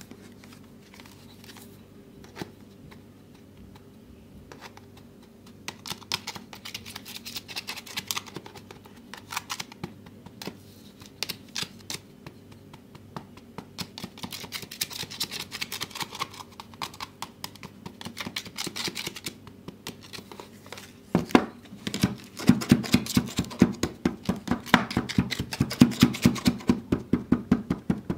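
Wooden pestle crushing and pressing crumbly, crunchy kinetic sand in a plastic tub: faint at first, then a crackling crunch of many small clicks, turning louder with rapid repeated tamping thuds from about 21 s in.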